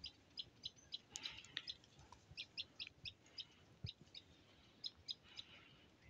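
Faint, short, high chirps of small birds, repeating a few times a second with brief pauses.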